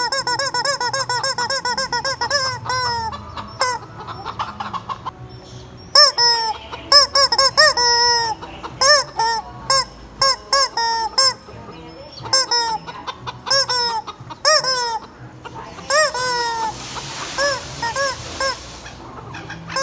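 Rubber chicken toy squeezed over and over, giving short, high, honking squawks. A fast even run comes in the first three seconds, then squawks singly and in quick groups. A few seconds of rasping, hissy noise come in near the end.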